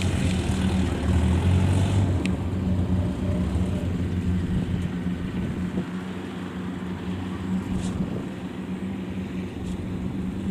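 Kubota DC70 combine harvester's diesel engine running steadily under work, a continuous low drone whose deepest hum fades after about two seconds.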